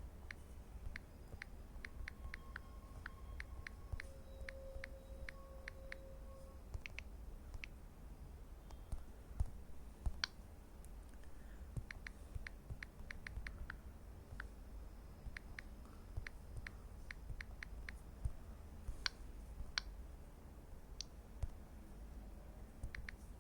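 Runs of short, sharp clicks, several a second with pauses between runs, from tapping and operating a Samsung Galaxy Tab A9+ tablet, over a low steady hum.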